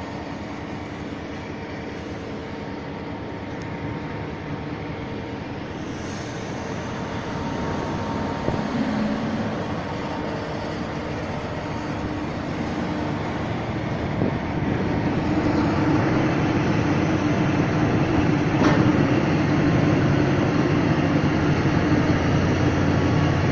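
Vossloh G1700 diesel-hydraulic shunting locomotive running as it moves tank wagons past, its engine sound growing louder from a little past halfway. One sharp knock sounds a little over three-quarters through.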